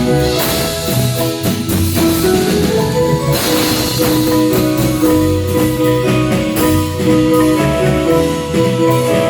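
Marimba band playing: a tremolo marimba melody over bass and drum kit.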